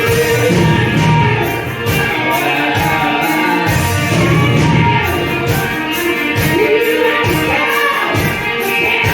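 Band music: a voice singing over guitars with a steady beat.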